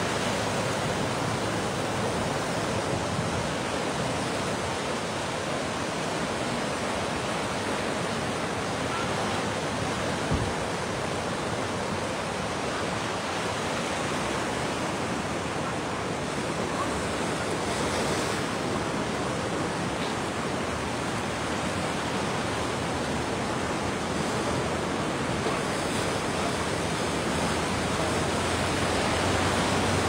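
Swollen Kok River in flood rushing past with a steady roar of fast-flowing water, with one brief knock about ten seconds in.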